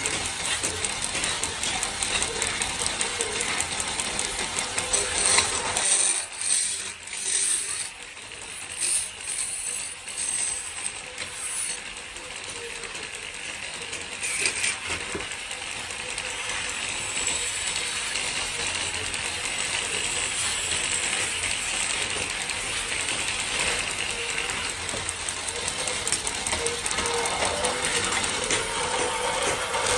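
Factory machinery running with a dense, rapid mechanical clatter. About six seconds in it breaks into a few separate loud clatters, then settles back into steady running.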